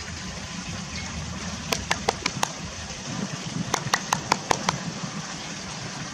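French bulldog puppy scratching at its neck with a hind paw, the metal collar buckle clinking in two quick runs of sharp clicks, about six a second, the second run a little longer. Steady background hiss underneath.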